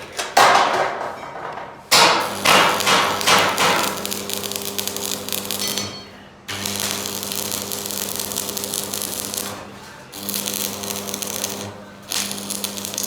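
Electric arc welding on steel hinges: runs of crackling hiss a few seconds each, starting and stopping abruptly, over the welding machine's steady hum. A few sharp metal knocks come in the first few seconds.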